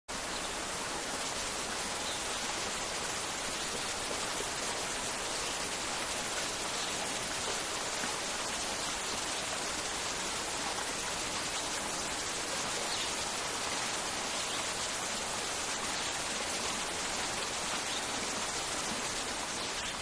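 Waterfall rushing steadily as water pours over rock ledges into a stream, with a few faint short high chirps.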